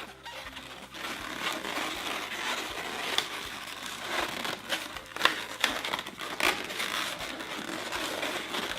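Inflated latex modelling balloon being twisted and squeezed into loops, its rubber rubbing and crinkling against itself and against hands, with many sharp clicks along the way.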